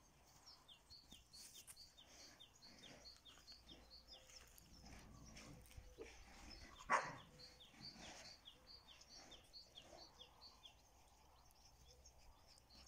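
Faint bird calls, short falling notes repeated about three times a second, with a single short dog bark about halfway through.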